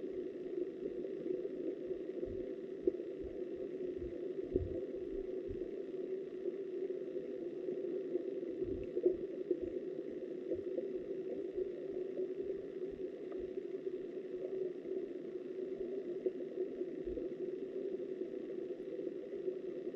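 Steady muffled rushing of river water recorded underwater, with scattered soft low thumps.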